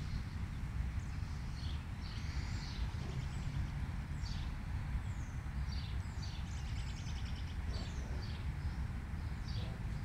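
Small birds chirping, short falling calls repeated every second or so with a quick trill about seven seconds in, over a steady low rumble.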